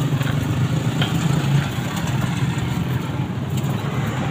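Steady low drone of running machinery, like an engine idling, with a few faint clicks over it.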